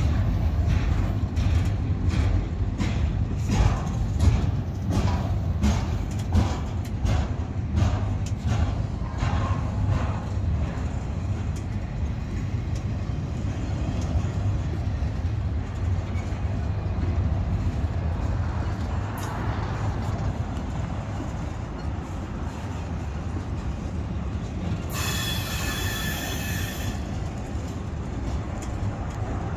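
Double-stack intermodal freight train rolling past close by: a steady low rumble of steel wheels on rail, with regular clacks over rail joints through the first half. A brief high squeal, about two seconds long, comes near the end.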